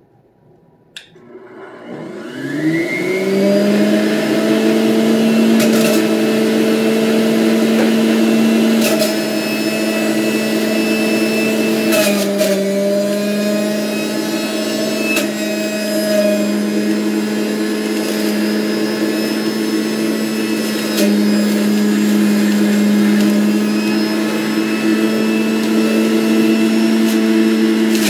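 Electric centrifugal juicer switched on with a click about a second in, its motor spinning up over a couple of seconds to a steady whine. The pitch dips now and then under load, and a few knocks come as pieces of fruit are fed down the chute with the plunger.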